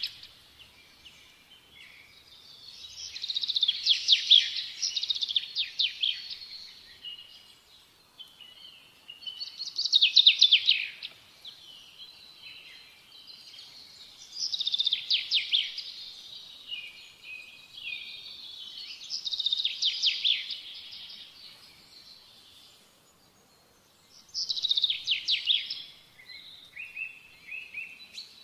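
A songbird singing: about five phrases of rapid trilled notes and chirps, one every four to five seconds, with quieter pauses between.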